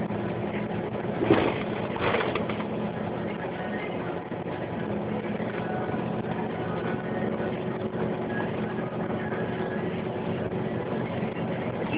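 City bus heard from the driver's cab as it drives along, its engine running with a steady hum. Two brief knocks or rattles of the bodywork come in the first couple of seconds, the first the louder.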